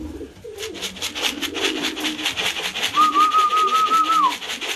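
Racing pigeons cooing in the loft, low rolling coos over a fast, even run of light tapping. About three seconds in, a steady whistle is held for about a second and drops away at its end.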